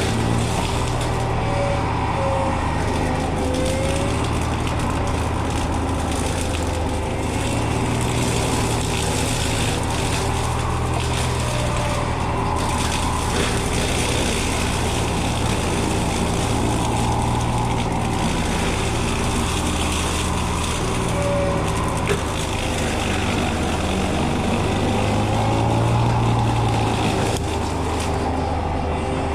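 Small excavator running steadily with its hydraulic brush-cutter attachment driving bush hog blades: a constant engine drone under a whine that wavers up and down in pitch.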